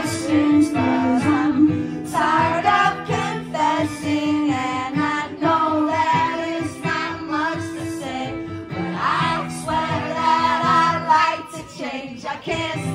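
A live song: a woman singing into a microphone over an amplified guitar.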